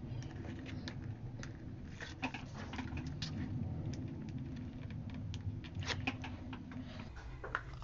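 Hands working paper and tape on a desk: scattered light rustles, scratches and small clicks as backing strips are peeled off double-sided tape and the kraft-paper cover is pressed down and smoothed. A low steady hum underneath drops away near the end.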